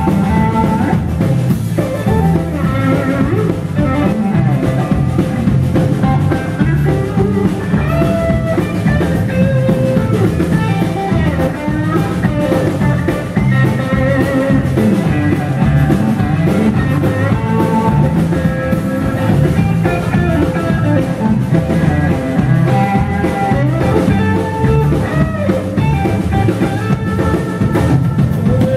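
Live country-rock band playing an instrumental break: an electric guitar lead winding over strummed acoustic guitar, bass and a steady drum-kit beat.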